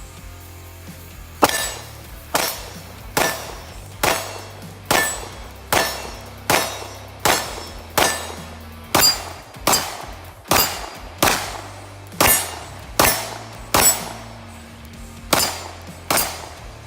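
CZ P10c polymer-frame striker-fired pistol firing 115-grain Fiocchi ammunition: a steady string of about eighteen single shots, roughly one every 0.8 s, with a brief pause before the last two.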